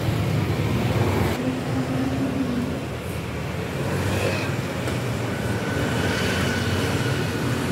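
Street traffic noise: a steady rumble of passing road vehicles.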